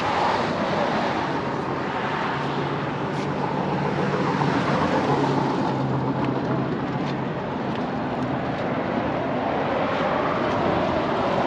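A car engine running with a steady low hum over a broad wash of noise. The hum is clearest in the middle and again near the end.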